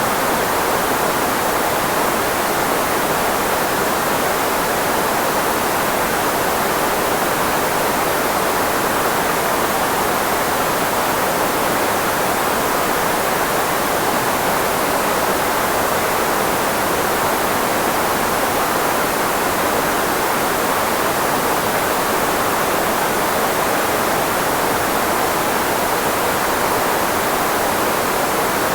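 Steady, synthetic filtered white noise, a speech-masking hiss with most of its energy in the range of the human voice, unchanging throughout.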